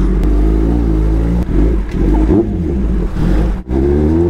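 Kawasaki ZX-10R inline-four sportbike engine with a loud exhaust, pulling away at low speed, its note rising and falling with the throttle. The sound drops out briefly about three and a half seconds in, then climbs again.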